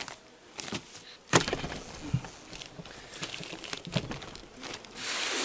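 Wooden hive frames knocking and scraping as they are shifted together to narrow the bees' nest, with a sharp knock about a second and a half in and a short rustling noise near the end.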